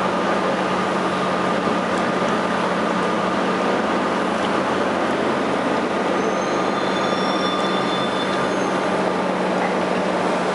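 São Paulo metro train heard from inside the car, running through a station: a steady rumble of wheels and motors with a constant hum. Faint high whining tones come in about two-thirds of the way through.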